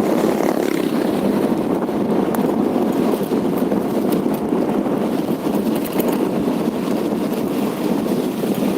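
Steady rushing noise of a vehicle in motion, with wind buffeting the microphone.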